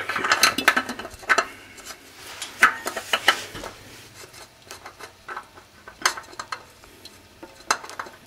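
Light metallic clinks and rattles of metal parts or tools being handled. They come thick and fast for about the first two seconds, then thin out into scattered clicks.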